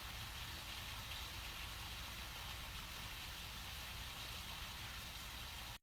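Steady faint hiss with a low hum underneath: background room tone with no distinct event. It cuts off suddenly near the end.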